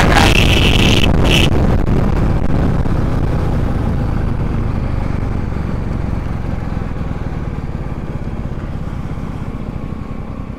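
Royal Enfield Classic 350 single-cylinder engine running at speed with wind noise, then steadily fading as the bike backs off and slows at the end of a drag run.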